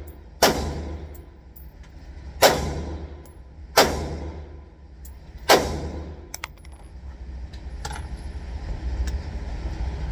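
Four single shots from an AR-15 rifle in 5.56, spaced unevenly over about five seconds, each with a ringing tail. A few light clicks follow, over a steady low rumble.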